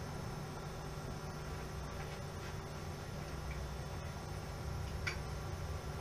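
Steady low electrical hum under a few faint clicks from brake levers and drop handlebars being handled and adjusted, the sharpest click about five seconds in.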